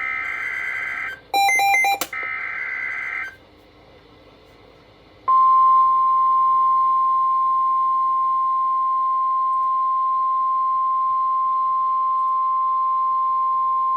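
NOAA Weather Radio Emergency Alert System (SAME) header data bursts, buzzy digital tones heard as two bursts, with a short louder multi-tone electronic beep cutting in between them. After a pause of about two seconds, the 1050 Hz weather radio warning alarm tone comes on and holds steady for about nine seconds, signalling that a warning follows.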